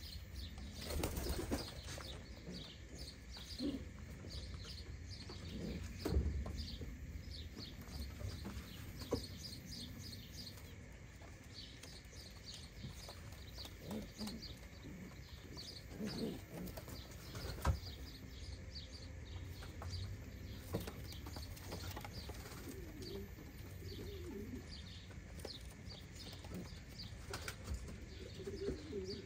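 American Show Racer pigeons cooing now and then, with a few sharp wing flaps. Small birds chirp quickly and busily in the background throughout, and the cooing is clearest near the end.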